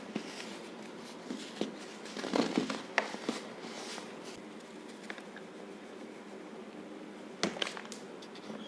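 Powdery baking soda and cornstarch mixture being pressed and crumbled by hand, giving soft scattered crunches in two clusters, about two to three seconds in and again about seven and a half seconds in.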